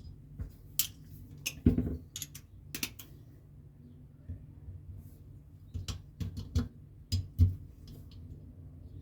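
Irregular small clicks and taps of a screwdriver and small carburetor parts being handled and threaded into a Solex carburetor body, with a couple of louder knocks, over a faint low hum.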